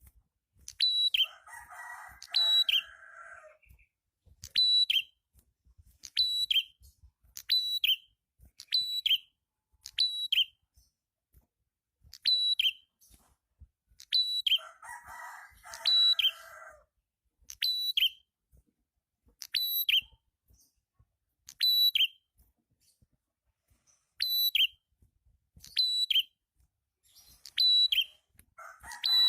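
A prenjak, the small songbird Indonesian keepers call prenjak kepala merah or prenjak atas, calling busily: a sharp, high, whistled note that drops at its end, repeated about once a second. Twice, near the start and about halfway, a lower, harsher chattering joins in for about two seconds.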